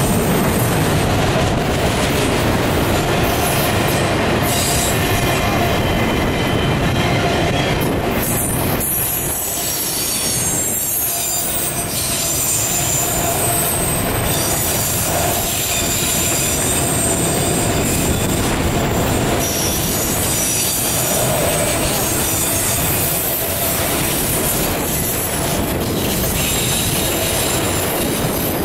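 Freight train of autorack cars rolling past close by: a steady, loud rumble and rattle of steel wheels on rail. Thin, high wheel-squeal tones come and go over it.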